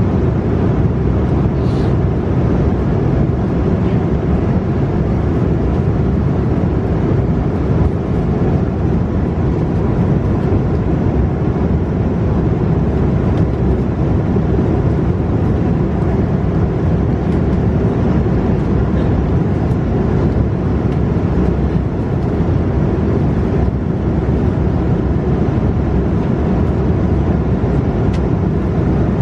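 Airbus A330-300 cabin noise in flight: a steady, loud, low rush of airflow and jet engines.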